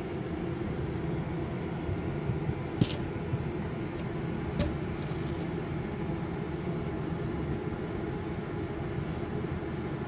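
Kitchen range-hood exhaust fan running with a steady hum, with two brief light clicks about three and four and a half seconds in.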